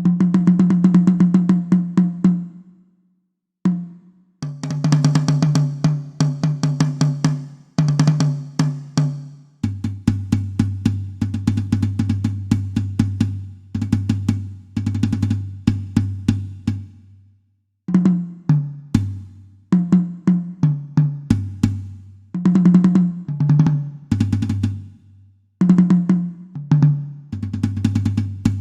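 Drum kit, a sampled software kit being sound-checked, playing fast rolls and fills around the toms. The pitch steps down from the higher toms to the low floor toms about ten seconds in, with cymbals washing over the early part and short breaks between the phrases.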